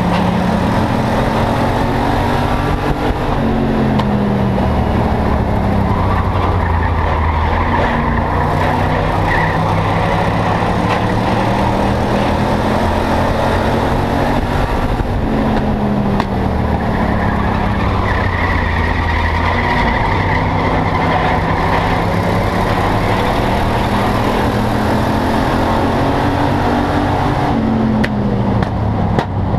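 Enduro stock car's engine heard from inside the cabin at race pace, running hard. Its pitch falls and climbs again several times as the car works around the oval.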